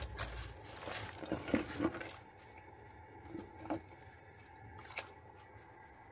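Chunks of carrot and other soup ingredients tipped from a bowl into a stainless steel pot of water, splashing in during the first two seconds, followed by a few light knocks against the pot.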